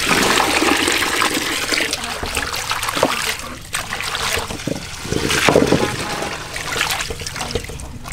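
Water pouring into a large aluminium basin of green leaves, then stopping about two to three seconds in; hands then swish and splash the leaves around in the water in irregular strokes to wash them.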